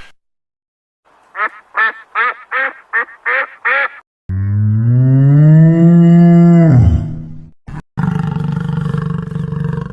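A quick run of about eight short quacking calls, then a different animal's long low call that swells and drops away at the end, then a harsh rasping call near the end.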